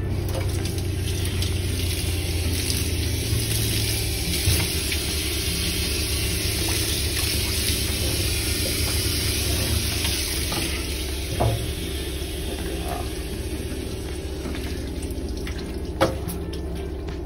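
Water spraying from a grooming-tub sprayer onto a wet dog's coat, a steady hiss that eases off about two-thirds of the way through, over a steady low hum. A few brief knocks, the loudest near the end.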